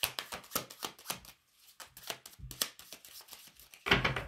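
A deck of oracle cards (Secret Keycards) being shuffled by hand: a quick run of papery card clicks, then sparser ones, with a louder knock near the end.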